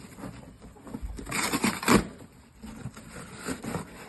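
Rustling and scraping of a cardboard bird-shipping box being handled, a burst about a second in that ends in a sharp thump, with light knocks around it.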